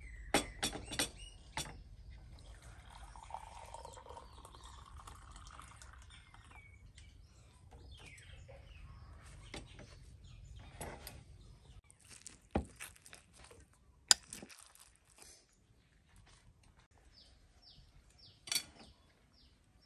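Tea poured from a ceramic teapot into a glass, rising a little in pitch as the glass fills, after a quick run of clinks as the teapot and glass are handled. Later come single clinks of a spoon on dishes and a few bird chirps near the end.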